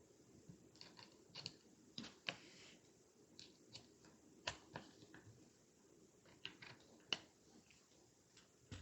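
Faint, irregular small metal clicks and taps as trigger-group parts are handled and seated in an AR-type lower receiver, with a few sharper clicks about halfway and about two-thirds of the way in.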